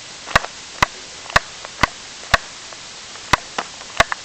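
Sharp clicks, about two a second and some in quick pairs, over steady hiss: a camera's buttons being pressed repeatedly while the camera fails to shut off.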